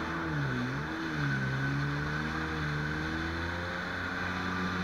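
Jet ski engine under way on the sea: the engine note drops briefly about half a second in as the throttle eases, then climbs back and rises slowly as it speeds up again, over a steady hiss of rushing water and spray.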